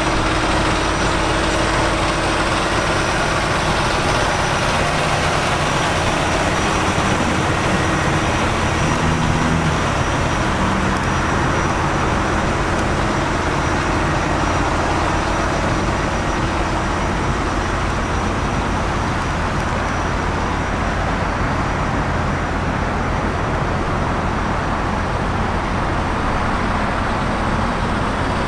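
Steady road-traffic noise with a constant low hum from heavy truck engines.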